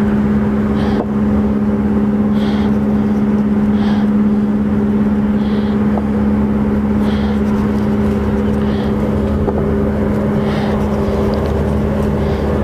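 A steady engine drone holds throughout, an unchanging low hum with a second, higher tone above it. Faint short high ticks recur about every one and a half seconds.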